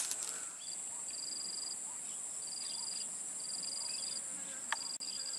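Insects calling: a steady high-pitched drone with a pulsing, cricket-like trill repeated about once a second in bursts of roughly half a second to a second. A single sharp click sounds about three-quarters of the way through.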